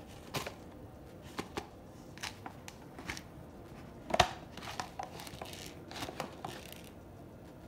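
Crinkling and rustling of a paper lid and packaging being handled on an instant noodle bowl, with scattered light clicks and one sharper knock about four seconds in.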